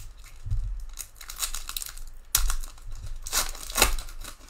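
A foil trading card pack wrapper being torn open and crinkled in gloved hands, in several irregular noisy bursts, with a sudden loud rip about two and a half seconds in and a thick cluster of crinkling near the end.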